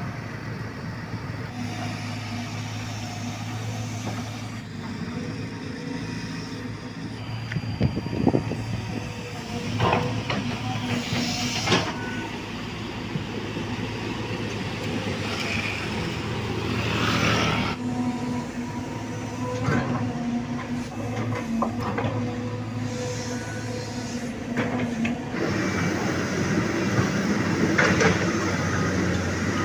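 Hydraulic excavator diesel engine running steadily, with sharp metallic clanks and knocks at irregular intervals, a cluster of them about a third of the way in and again near the middle.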